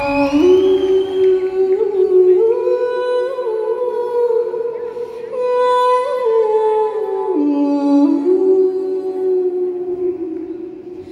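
Live pop music heard from the audience: a woman singing long, held notes that step up and down over a soft sustained accompaniment, with no drumbeat.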